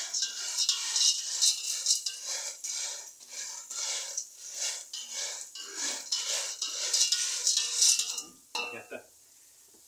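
Black plastic spatula stirring dry soup pasta as it browns in a speckled enamel pot: a steady run of scraping, rattling strokes, about two a second, that stops about eight seconds in.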